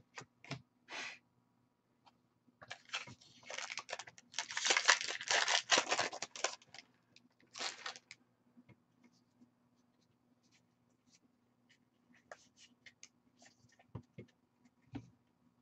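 A foil Magic: The Gathering booster pack wrapper being torn open and crinkled for a few seconds, followed by a short rustle and scattered soft clicks of cards being handled.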